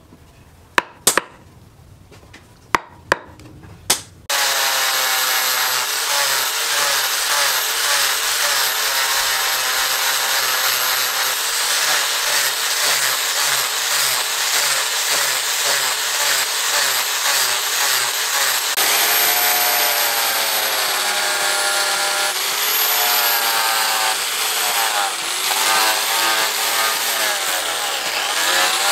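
A few sharp hatchet chops into a wooden axe handle, then from about four seconds in an angle grinder with a sanding disc running continuously against the wood. Its whine wavers in pitch as the disc is pressed onto the handle and eased off.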